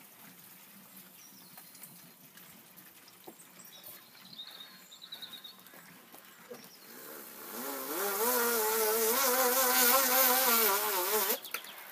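A loud buzzing whine starts about seven seconds in, rising briefly in pitch, then holds with a slight waver over a strong hiss for about four seconds before cutting off. It sounds like a small motor blowing air. Before it there is only faint hiss with a few small chirps.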